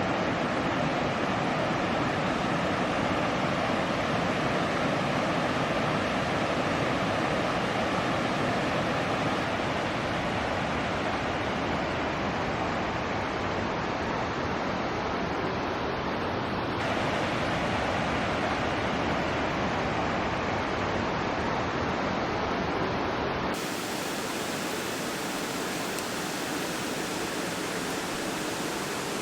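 Valley stream rushing over rocks: a steady wash of flowing water. Its tone changes abruptly twice, in the second half.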